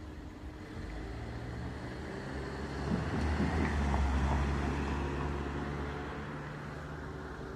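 A motor vehicle passing close by: a low, steady engine hum that swells to its loudest about halfway through, then slowly fades.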